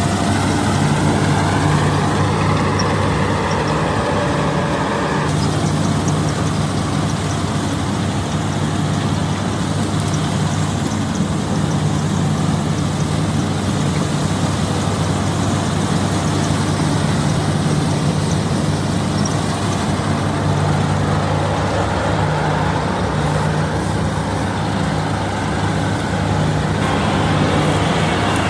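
Combine harvester running at work: a steady diesel engine drone under the noise of the threshing machinery. The mix changes suddenly about five seconds in and twice more near the end.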